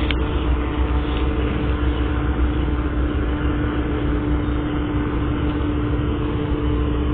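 Steady machine hum: a constant low rumble with a steady droning tone, holding an even level without change.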